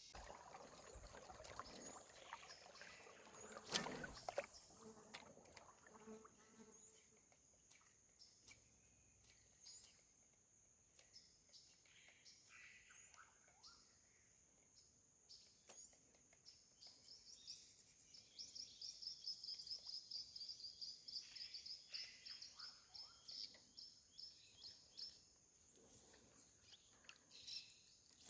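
Faint tropical forest ambience: a steady high insect drone with scattered short bird chirps. A rapid trilling call runs from about 18 to 22 seconds in, and there is a single soft knock about 4 seconds in.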